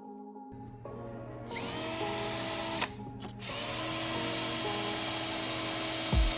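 A handheld power tool runs in two long bursts: one starts about a second and a half in and stops near three seconds, and the other starts about half a second later and runs on. Background music with held tones plays underneath.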